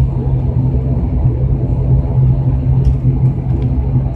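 Turboprop airliner's engines and propellers running steadily, heard inside the passenger cabin while the aircraft taxis: a loud, even low hum, with a few faint clicks near the end.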